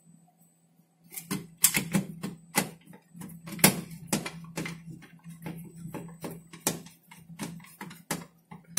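Screwdriver driving a screw through an LCD monitor's controller board into its sheet-steel chassis: a string of irregular sharp clicks and ticks as the screw is turned in.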